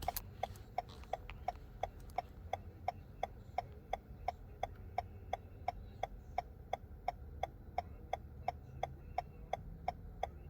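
A car's indicator relay ticking steadily inside the cabin, about three even ticks a second, over the low rumble of the car.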